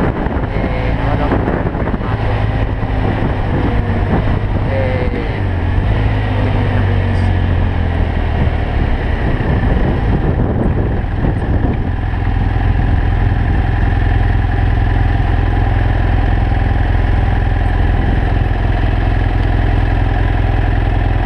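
BMW F800GS Adventure's parallel-twin engine running steadily while riding on the road, with wind noise on the microphone.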